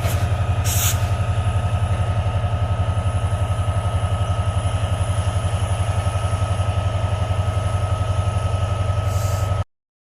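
Diesel-electric freight locomotive engine running at low throttle with a steady, throbbing low drone and a thin steady whine above it; a short burst of air hiss comes right at the start and again about a second in. The sound cuts off abruptly near the end.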